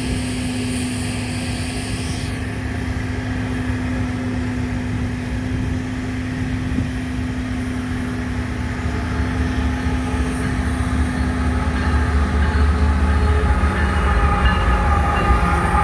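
Intermodal freight train running, a continuous low diesel rumble with a steady hum, growing louder over the last few seconds as high ringing tones rise above it.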